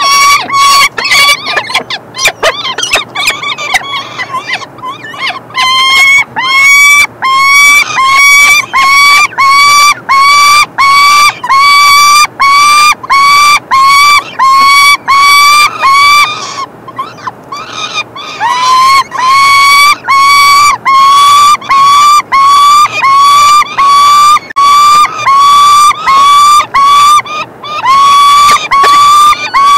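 Peregrine falcon chicks giving loud, harsh food-begging calls while being fed, one call about every half-second. A brief pause comes a little past the middle.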